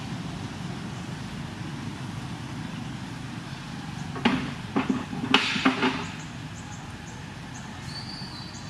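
Steady low rumble of distant road traffic, with a brief cluster of sharp knocks and clicks a little past the middle.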